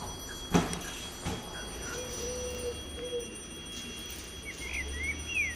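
Quiet ambience with a sharp knock about half a second in and a fainter one a second later, then a few short chirps near the end.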